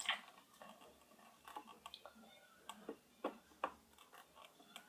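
Faint, irregular clicks and taps of hard plastic being handled: a mouthguard and its strap being worked onto a football helmet.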